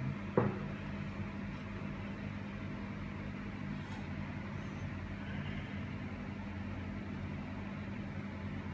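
Steady low mechanical hum, like a fan or motor running, with one sharp click just under half a second in.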